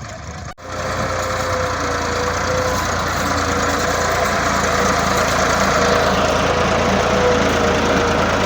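Tractor engine running steadily and loud; the sound cuts out for an instant about half a second in and comes back louder.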